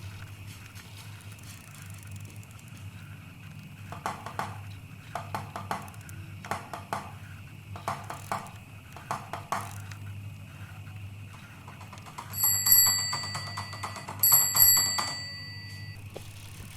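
A bicycle bell rung twice near the end, each ring ringing on for over a second. Before it, a run of short rattles, typical of the bicycle jolting over a rough road, over a steady low hum.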